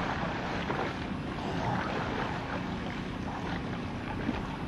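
Steady rumble of a fishing boat's engine, mixed with wind on the microphone and water.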